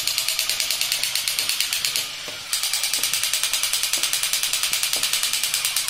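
Two battery-operated crawling soldier toys, a Batman and a Spider-Man figure with rifles, running at once: a fast, even rattle of about seven clicks a second that eases off briefly about two seconds in.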